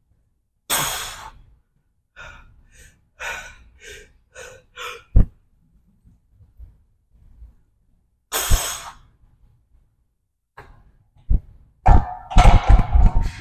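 A man breathing hard with effort during a set of leg exercise: a long forceful exhale, a run of about five short puffs, then another long exhale. Low thuds of gym weights come once just after the puffs and in a cluster near the end.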